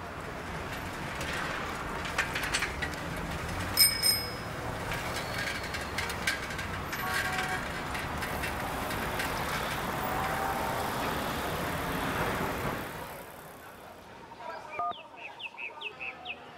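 Bicycle riding along a paved road: a steady rush of tyre and riding noise with scattered clicks, and the handlebar bell rung once, ringing brightly about four seconds in. The riding noise stops near the end, and short electronic beeps of a mobile phone's keypad being tapped follow.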